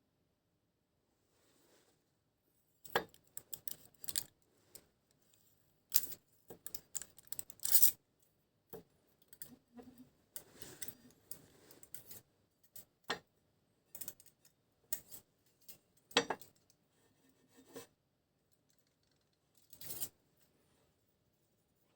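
Irregular metallic clicks, clinks and short scrapes of hand tools or metal parts being handled, with the milling machine not running. The clatter comes in scattered clusters, loudest a few seconds in and again around the middle.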